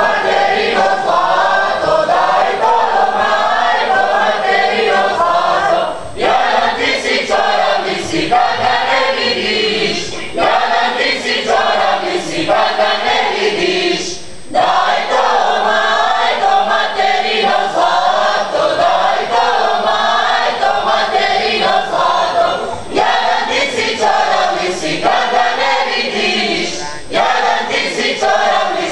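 A mixed group of male and female voices singing a Bosnian folk song together, in phrases broken by short breaths every few seconds.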